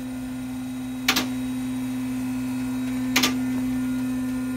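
Two-post car lift's motor running with a steady hum as it raises a car, with two sharp clicks about two seconds apart.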